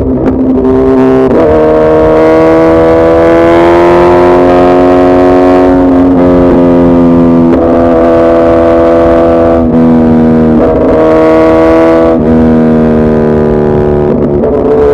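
Suzuki Hayabusa Gen3's 1340 cc inline-four engine running hard at high revs, its pitch holding steady for a few seconds at a time and then stepping up or down several times.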